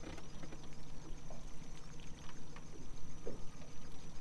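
Small motorboat's engine idling steadily, with scattered small knocks and splashes of water at the side of the boat.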